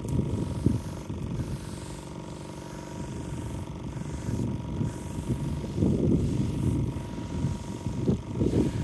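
Pressure washer running with a steady motor hum while its lance sprays water over a K Rend wall to clean the render. Louder rumbling surges come about six seconds in and again near the end.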